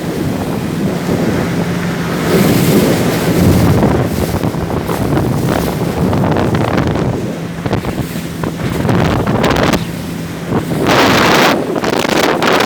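Wind buffeting the microphone in gusts, with a steady low motor hum underneath, as aboard a running boat. The gusts swell about two seconds in and again near the end.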